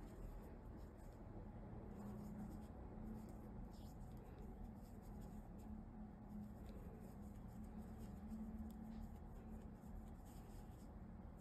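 Faint, irregular scratching and rustling of a crochet hook drawing yarn through stitches, over a low steady hum.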